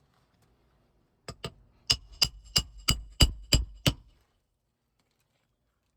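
Roofing hammer driving a roofing nail under an asphalt shingle with a roof snake: two light taps, then seven hard strikes about three a second, each with a metallic ring, stopping about four seconds in.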